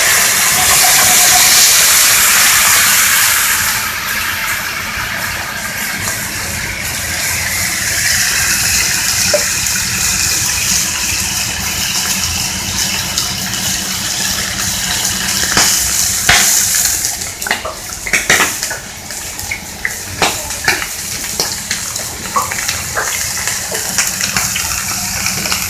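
White wine hitting a very hot skillet of olive oil and searing steak: a loud hiss as it flares up, easing after about four seconds into a steady sizzle and bubbling as the pan is deglazed and the sauce reduces. Several sharp knocks and clinks from the pan or a utensil come in the later part.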